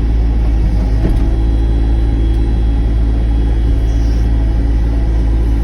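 Sany SY35 mini excavator's diesel engine running with a steady low drone, with a faint click about a second in.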